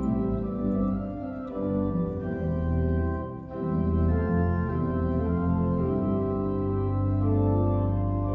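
Church organ playing slow, sustained chords over a bass line, with a brief break between phrases about three and a half seconds in.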